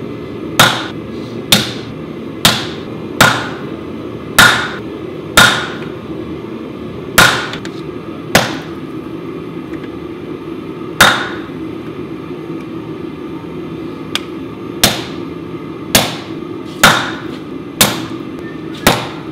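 Blacksmith's hammer striking a red-hot O1 tool-steel knife blank laid over a hardy tool on the anvil, forging a groove into it: about fifteen ringing metal-on-metal blows, roughly a second apart, with a longer pause near the middle.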